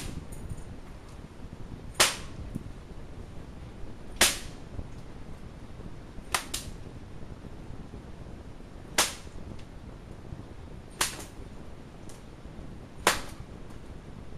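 Leather bullwhip cracked again and again: sharp cracks about every two seconds, one of them a quick double crack.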